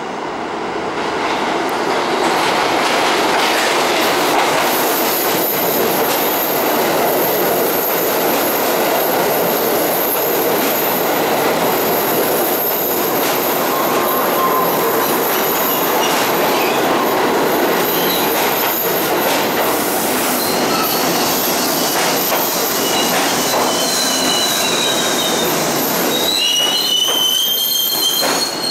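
R68 New York City subway train rolling into the station, a loud steady rumble and clatter of wheels on rail that swells over the first two seconds. High metallic squeals from the wheels and brakes come in over the last third and grow strong near the end.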